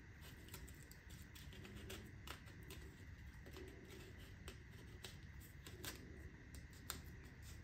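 Faint crinkling and scattered small clicks of blue painter's tape being wrapped and pressed by hand around the threaded shank of a bronze thru-hull fitting.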